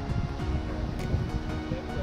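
Electronic background music with a steady beat and sustained synth tones.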